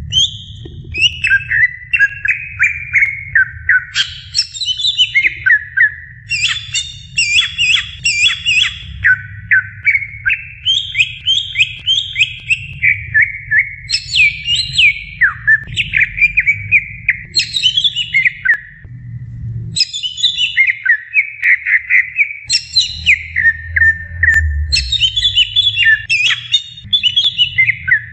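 Green leafbird (cucak ijo) singing a long, unbroken song of rapid chattering phrases, many of them strings of notes stepping downward in pitch, over a steady low rumble.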